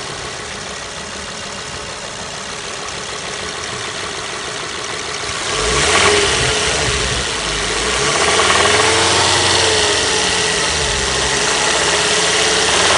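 Ford Focus ST225's 2.5-litre turbocharged five-cylinder engine idling, then revved up sharply once about five seconds in and again more slowly a couple of seconds later. The owner hears a chain-type rattle from it when revved, and has heard that it may be starved of oil.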